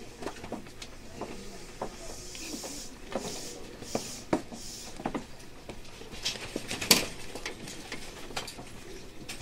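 Station platform ambience beside a stopped electric train: scattered clicks and knocks, with a few short hisses in the middle and a sharper knock about seven seconds in.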